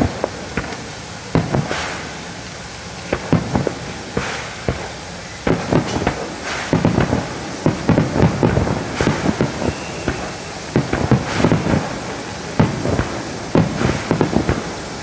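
Aerial fireworks shells bursting: an irregular series of booms and crackles, coming thicker and faster from about five seconds in.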